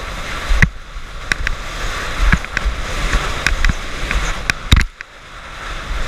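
Windsurf board planing over chop: wind rushing across the camera microphone and water hissing, with sharp slaps as the board strikes the chop, the loudest about half a second in, at around two and a quarter seconds, and twice close together near four and three-quarter seconds. The rush drops off briefly about five seconds in, then builds back.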